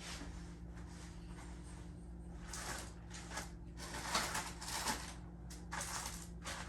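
Rummaging and handling noises: a handful of short scraping, rustling clatters, the busiest a little past the middle, over a steady low hum.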